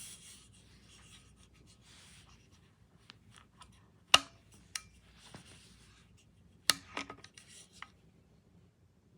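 Faint rubbing and handling noises, with two sharp clicks about four seconds in and again near seven seconds, and a few lighter ticks.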